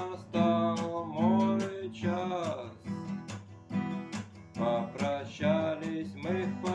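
Acoustic guitar strummed in a steady rhythm, with a voice singing a song melody over it.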